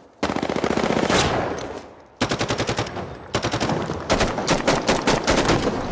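Automatic gunfire from M4-style carbines. A loud burst rings out and dies away into echo. About two seconds in, rapid fire resumes in near-continuous bursts with short breaks.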